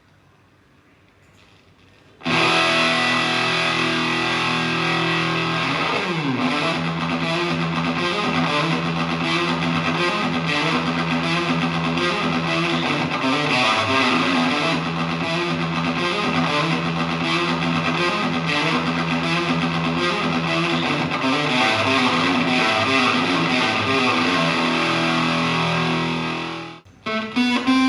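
Electric guitar played through a Tone Bender MKII-style germanium fuzz pedal: thick, fuzzed riffing that starts abruptly after about two quiet seconds, with a downward slide about six seconds in. The playing breaks off briefly near the end before a new phrase starts.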